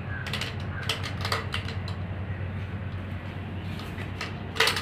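Scattered light clicks and knocks of a snake being handled over a clear plastic container, with a sharper knock near the end, over a steady low hum.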